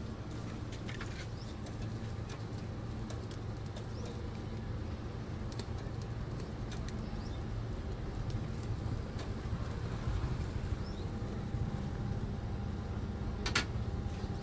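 Street ambience: a steady low rumble of traffic and engines, with scattered light clicks and taps and one sharper click near the end.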